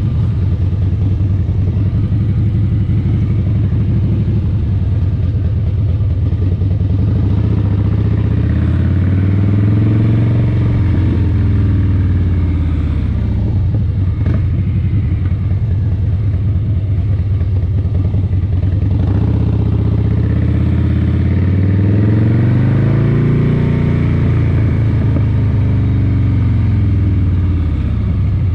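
A vehicle engine running steadily, its pitch rising and falling back twice as it speeds up and slows down.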